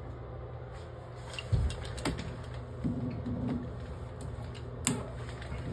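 Adjustable wrench being fitted onto a bathtub faucet's valve stem nut: a dull thump about a second and a half in, then sharp metal clicks, one near two seconds and another near five seconds.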